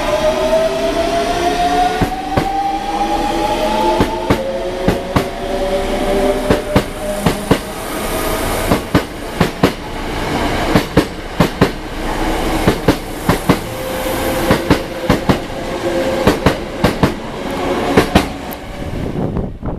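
Hankyu 8000 series electric train accelerating away, its VVVF inverter whining loud and slightly muddy: an abnormal-sounding inverter. The whine climbs in pitch in stages while the wheels click over the rail joints faster and faster.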